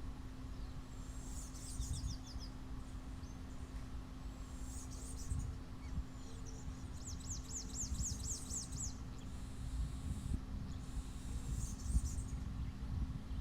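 Small birds chirping, with a quick trill of about eight rapid high notes some seven seconds in, over a steady low background rumble and hum.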